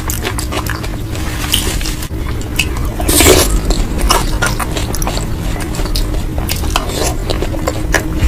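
A person chewing and biting food close to the microphone: a run of quick wet clicks and smacks, with one louder burst about three seconds in.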